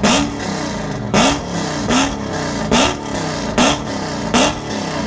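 Supercharged Dodge Challenger SRT V8 revved hard in repeated throttle blips, about one loud rev every second, each rising sharply in pitch and dropping back between them.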